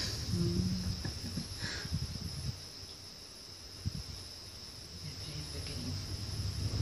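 Steady high-pitched drone of insects from the rainforest, under a low rumble with scattered knocks from the gondola cabin that fades after about two seconds and builds again near the end as the cabin nears a tower.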